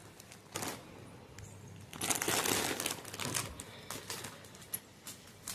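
Parcel packaging crinkling and rustling in irregular bursts as it is unwrapped by hand.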